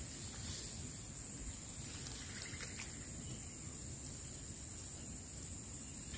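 Steady high-pitched chorus of insects buzzing in swamp grass, over a faint low rumble.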